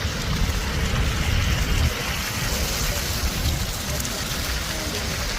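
Wind blowing during a heavy snowfall: a steady rushing noise with a low, uneven rumble of wind buffeting the microphone.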